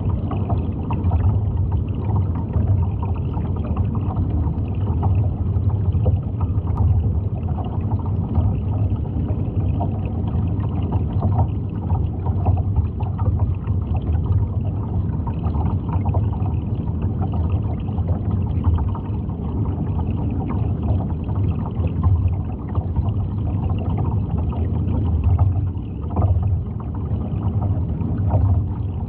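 Steady low rumble of moving water with faint gurgling and small irregular ticks.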